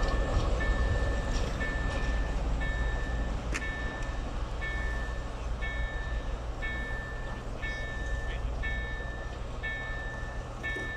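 ČME3 diesel shunting locomotive's engine rumbling as it pulls away, gradually fading. Over it, a railway level-crossing warning signal beeps in an even, repeating on-off pattern a little faster than once a second.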